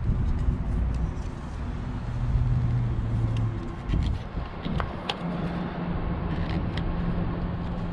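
A motor vehicle's engine running, its low hum shifting in pitch about four seconds in and then holding steady, with a few light clicks and taps over it.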